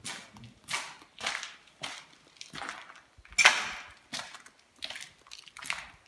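Footsteps crunching over fallen ceiling plaster and debris on a floor, about two steps a second, with one louder crunch about halfway through.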